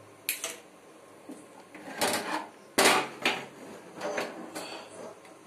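A metal cooking pot knocking and clanking as it is handled and set onto the grate of a lit gas stove burner to cook rice: about seven sharp knocks, the loudest around two and three seconds in.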